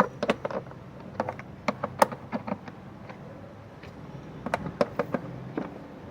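Irregular sharp clicks and knocks of hand tools and parts being handled during timing-belt work on an engine. They come in two clusters, one through the first two and a half seconds and another from about four and a half to five and a half seconds in, over a low steady hum.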